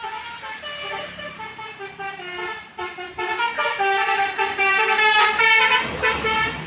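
A bus's Basuri telolet horn, a multi-tone electric musical horn, playing a quick tune of stepping notes that grows louder as the bus approaches. About six seconds in the tune stops and a rush of passing-vehicle noise takes over.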